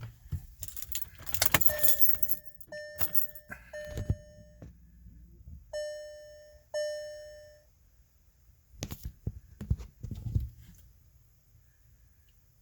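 Keys jangling, then a car's dashboard warning chime rings about five times, each a clear tone that fades away, the last two spaced about a second apart. A few knocks follow near the end.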